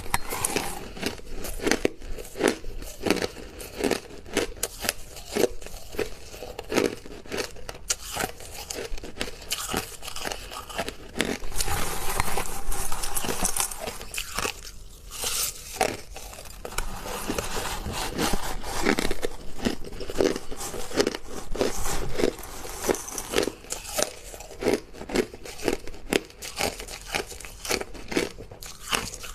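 Hard crushed ice being bitten and chewed: a steady run of crisp, regular crunches, with a short lull about halfway through.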